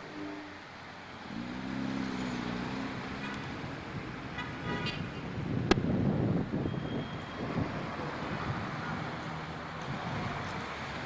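Street traffic, with car engines passing and a short car-horn toot about four and a half seconds in. A sharp click follows, and a vehicle passes loudest around six seconds in.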